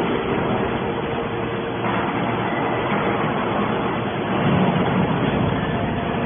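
Hydraulic scrap iron baler running: a steady, loud machine noise with a constant hum, swelling briefly a little past the middle.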